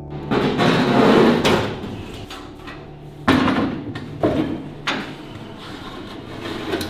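A bare sheet-metal car door being handled and set down on a metal folding table: rattling and scraping of the panel, then a sharp clank a little over three seconds in, followed by a few lighter knocks.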